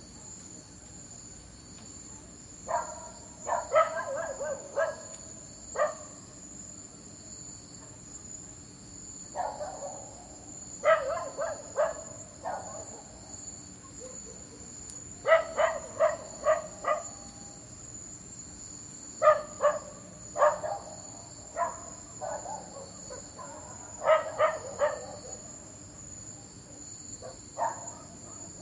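A dog barking in bursts of several quick barks every few seconds, over a steady high chirring of crickets.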